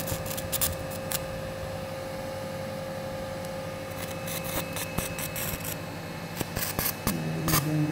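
Surgical instruments clicking and scraping in an operating room, over a steady electrical hum. A voice is heard briefly near the end.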